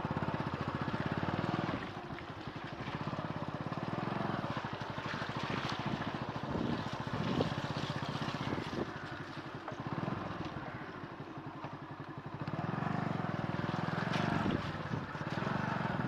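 Motorcycle engine running under the rider, with a steady firing pulse; it is softer through the middle and louder again near the end.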